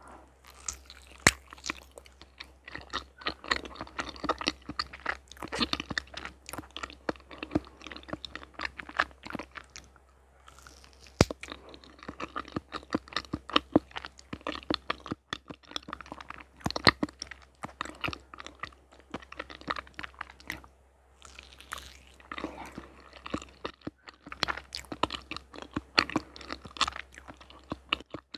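Close-miked mouth chewing a bite of soft yellow cheesecake: wet, sticky chewing with many small mouth clicks and a couple of brief pauses.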